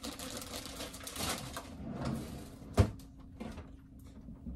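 Kitchen handling sounds: soft rustling and movement, then a single sharp knock about three seconds in, over a faint steady low hum.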